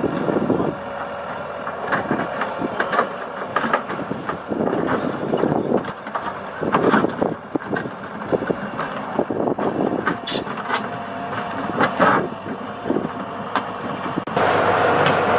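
Diesel engines of heavy forestry and earthmoving machinery running under load, with irregular metallic clanks and knocks. Near the end the sound switches abruptly to a louder, steady engine drone.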